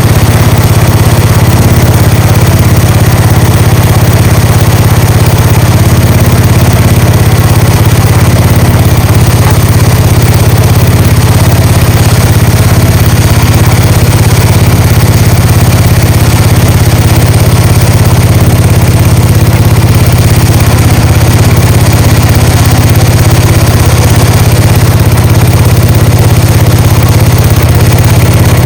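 Gravely tractor engine running steadily after a cold start, loud and close, with no change in speed.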